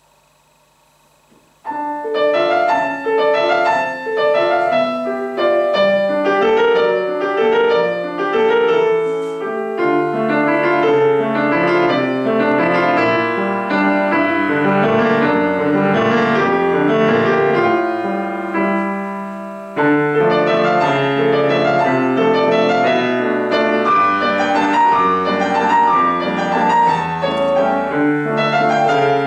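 Grand piano played four hands by two pianists, starting a piece about two seconds in after a short hush. The playing thins briefly about two-thirds of the way through, then carries on.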